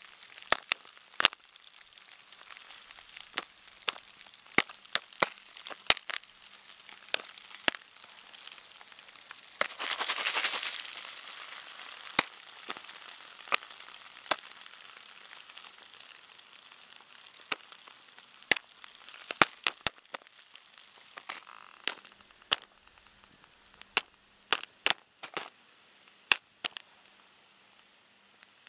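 Butter Jiffy Pop popcorn popping in its foil pan over a small wood-burning stove: scattered sharp pops at irregular intervals over a steady sizzle of hot oil, with a louder swell of sizzling about ten seconds in. The popping is sporadic, which may come from the stove's uneven heat; many kernels stay unpopped.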